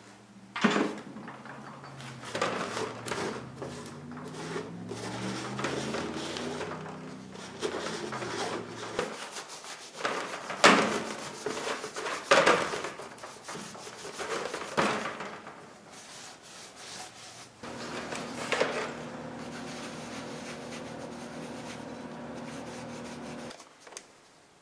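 Paper towel wet with methanol rubbed over the cast-iron body of an old bottle jack, with scraping and sharp knocks as the jack is handled on a metal tray, the loudest about halfway through. A steady low hum runs behind it.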